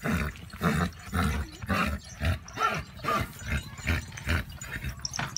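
Horse grunting rhythmically, about two grunts a second.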